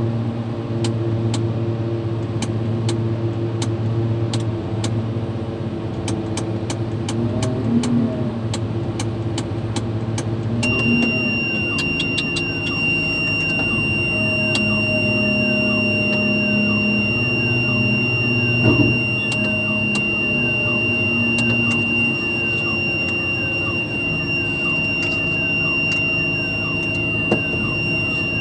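Mobile crane's diesel engine running steadily. About eleven seconds in, a steady high-pitched buzzer tone starts and keeps sounding over it, with a few knocks along the way.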